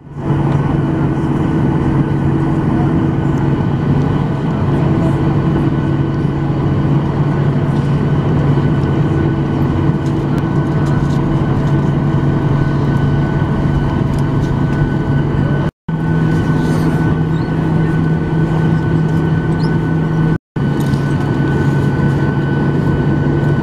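Cabin noise of a Boeing 737-900ER taxiing, heard from inside the cabin: its CFM56 jet engines running at idle with a steady hum and a thin whine. The sound drops out for an instant twice.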